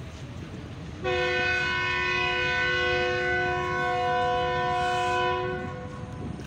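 Train horn sounding one long, steady chord of several notes for about four and a half seconds, starting about a second in, over the low rumble of the moving train.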